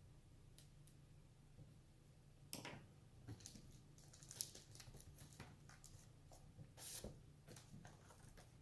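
Faint, irregular clicks, taps and short scrapes of hands and small tools on the plastic case and parts of an HP Pavilion 15 laptop being taken apart. They start about two and a half seconds in, over a low steady hum.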